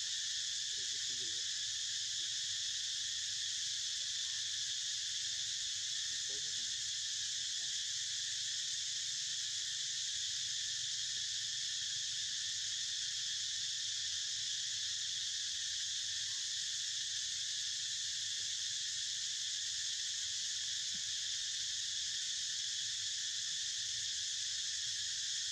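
Dense chorus of insects making a steady, unbroken high-pitched drone.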